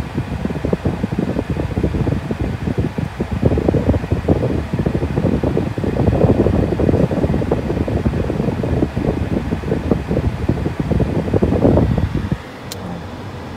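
Car air conditioning blowing hard from the dash vents, its airflow buffeting the microphone in uneven gusts; it drops away sharply near the end.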